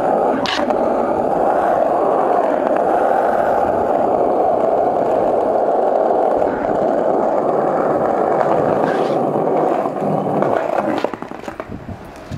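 Skateboard wheels rolling on rough asphalt: a steady loud rumbling roll that cuts off about eleven seconds in as the board stops, followed by a few light knocks.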